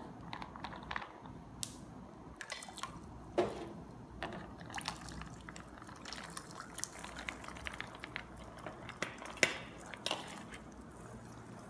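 Soaked, drained dal being tipped into hot deep-frying oil, the oil sizzling with a steady hiss and scattered sharp pops and crackles as the wet lentils hit it.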